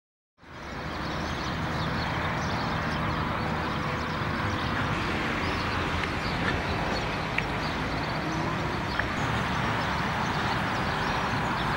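Steady outdoor background noise, like distant traffic, fading in during the first second. Faint short chirps sit over it, and there are three brief sharp clicks in the middle stretch.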